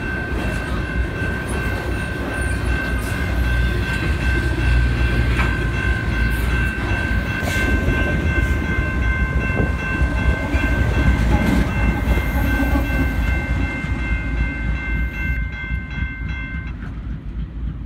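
Canadian Pacific stack freight train rolling past: a continuous low rumble and wheel clatter over the rails as autorack cars and the rear Union Pacific locomotive go by. A steady high ringing tone runs above it and cuts off suddenly near the end.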